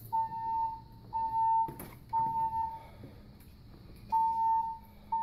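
Electronic alarm beeping: one steady high beep about once a second, each lasting most of a second, with one beep skipped around the middle. A brief sharp knock comes just before the third beep ends.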